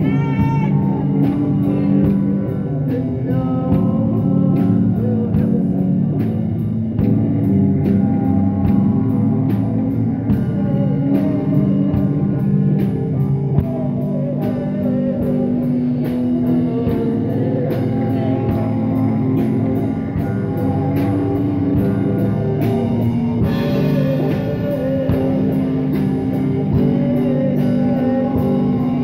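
Live rock band playing: electric guitar over a steady drumbeat on a drum kit, with sung vocals coming in and out.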